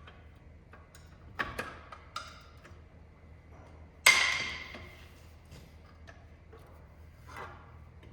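Metal tools and clutch parts clinking and clanking during hand work, with one loud ringing metal clang about four seconds in that dies away over about a second.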